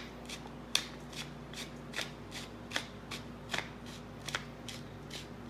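Black pepper mill being twisted over a bowl, giving even, sharp clicks about two to three times a second.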